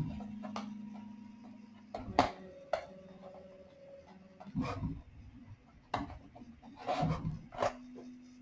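Prusa MK4 3D printer's stepper motors humming at a few steady pitches as the print head moves, each move holding one tone, with scattered clicks and short knocks between the moves.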